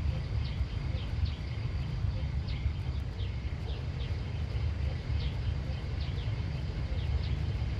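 Small birds chirping outdoors in short, falling calls, several a second, over a steady low rumble.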